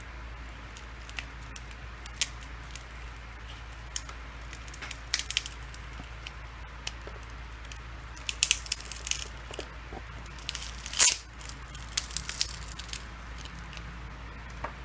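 Small plastic parts of a Samsung Galaxy S6 Edge being pried and peeled apart by hand: scattered light clicks and crackling, like glued pieces coming loose. The sounds are busiest in the second half, with the loudest crackle a little past the middle.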